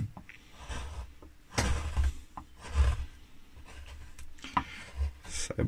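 Hand-pushed No. 6 carving gouge paring linden (lime) wood, with several short scraping cuts.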